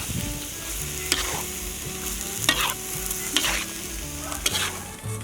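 Snake meat sizzling in hot oil with sauce while it is stir-fried, a spatula scraping through the pan about once a second over a steady hiss.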